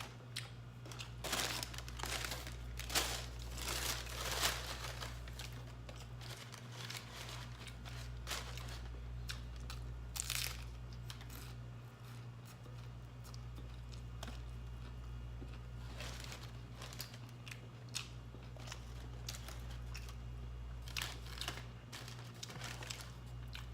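Close-miked eating of fast-food tacos: paper food wrappers crinkling and tearing, with crunchy bites and chewing, as irregular sharp crackles over a steady low hum.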